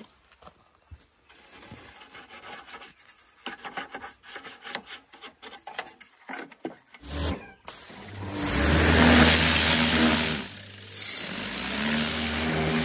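A pressure washer starts about seven seconds in: the pump motor runs with a steady hum under the loud hiss of the water jet hitting the mower deck. It eases off briefly about two-thirds of the way through, then resumes. Before that there are only faint scattered clicks and knocks.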